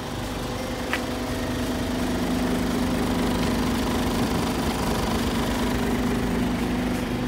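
Isuzu Giga tractor unit's diesel engine idling steadily, growing louder about two seconds in, with one brief click about a second in.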